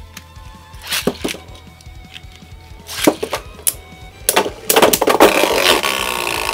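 Spinning Beyblade tops clashing in a stadium: several sharp, hard hits, then a rapid run of loud collisions through the last couple of seconds.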